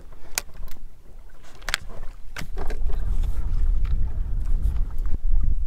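Low rumble of wind and small waves slapping against the hull of a fishing boat, with several sharp clicks and taps scattered through it.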